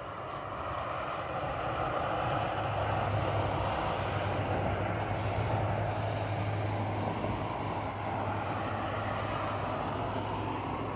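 A motor vehicle passing on the road below: steady engine hum and tyre noise that swells over the first few seconds and then eases off slightly.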